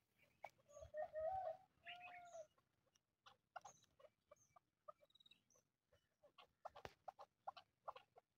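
Chukar partridge calling: two pitched calls about one and two seconds in, followed by a run of short, sharp notes.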